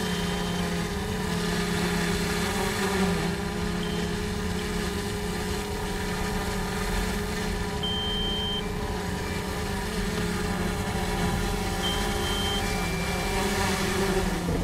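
Heavy diesel engines of dump trucks and an excavator running steadily on a dirt work site. A short high electronic beep sounds about every four seconds over the engine noise.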